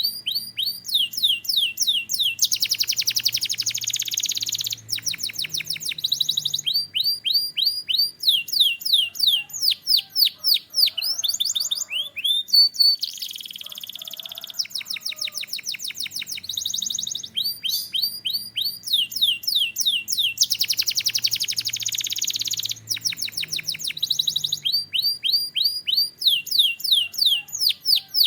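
Canary singing: fast runs of repeated downward-sweeping whistled notes, broken three times by dense, buzzy rolled trills.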